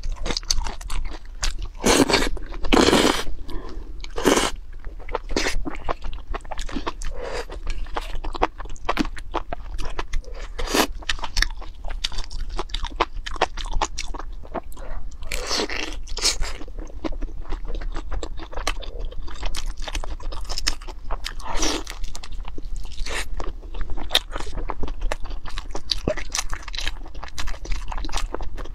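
Close-miked eating sounds: steady crunching, biting and chewing of sauce-glazed fried rolls. A few longer slurps of noodles come in about two seconds in, around the middle and later on.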